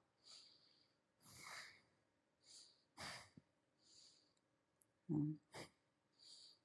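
A person's faint breathing: several short breaths about a second apart, with a brief low vocal sound, like a murmur, about five seconds in.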